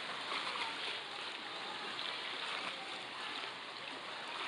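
Steady splashing and churning of water from swimmers doing front crawl in a pool, a continuous wash of water noise.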